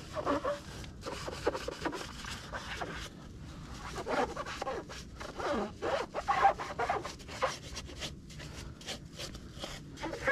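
Hand sponge rubbing and wiping over a motorcycle's wet chrome engine covers and cylinder fins, in irregular back-and-forth strokes with short squeaks.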